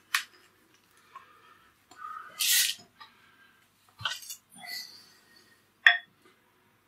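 Short rustles and scrapes of hands handling baking paper on a kitchen counter, with one sharp click about six seconds in.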